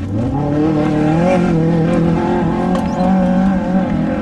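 Off-road desert race truck's engine rising in revs, then holding steady at high revs.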